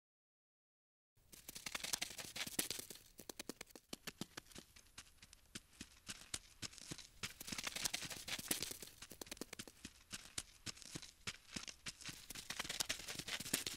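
Rapid, uneven scratching and ticking, a skittering insect-crawl sound effect for the animated ladybug's legs, starting about a second in after silence.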